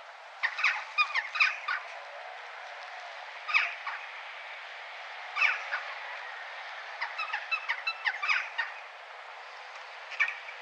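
A crow cawing: a run of harsh calls about half a second in, single calls around four and five and a half seconds, a longer quick run from about seven seconds, and one more near the end, over steady town background noise.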